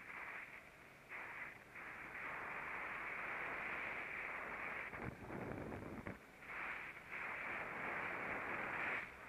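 Muffled rush of a go-kart at speed heard from onboard, engine and wind noise together, dipping briefly a few times. A deeper rumble lasts about a second around the middle.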